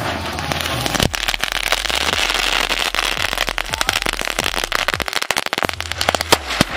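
A ring of chitput crackling crackers burning around a ground spinner (zameen chakkar): dense, rapid crackling and popping over a steady hiss, with a few sharper pops near the end.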